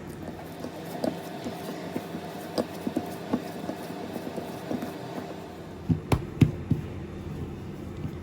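Irregular light taps and clicks, with a few louder knocks about six seconds in, over a steady low hum: kitchen utensils and a bowl being handled.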